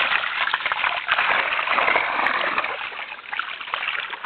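Continuous water splashing as crucian carp and carp thrash in a wire-hoop keepnet in shallow water. The splashing eases off near the end.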